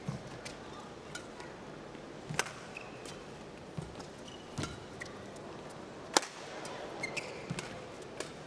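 Badminton rally: rackets striking the shuttlecock about once a second, the sharpest hit about six seconds in, with short squeaks of court shoes on the mat between strokes.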